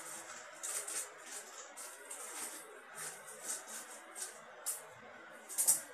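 Scissors cutting open a plastic courier mailer: a run of short, crisp snips and crinkling plastic, several a second, with the loudest snip near the end.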